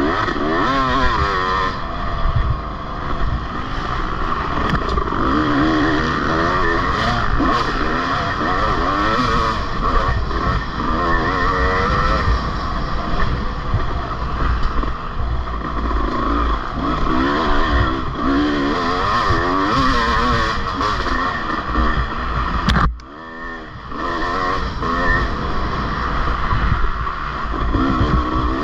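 Off-road race vehicle engine revving up and down over and over as the throttle is opened and closed. About three-quarters of the way through, the sound drops sharply for about a second, then picks up again.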